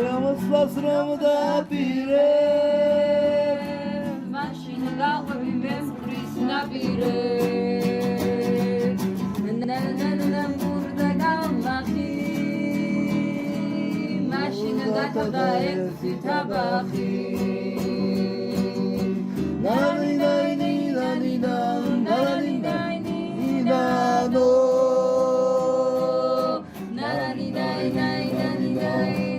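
A voice singing long, wavering notes over a strummed plucked string instrument, in a folk style.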